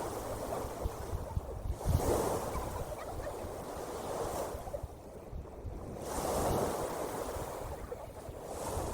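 Ocean waves washing in and drawing back, the surf swelling and fading every few seconds, with wind rumbling on the microphone.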